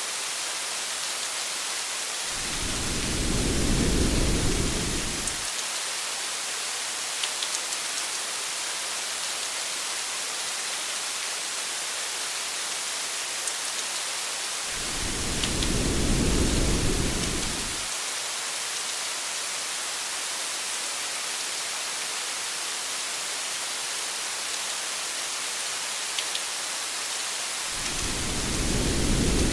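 Steady hiss of heavy rain with a few light drop ticks, broken three times by a low rumble of thunder lasting about three seconds, the rumbles evenly spaced about twelve seconds apart.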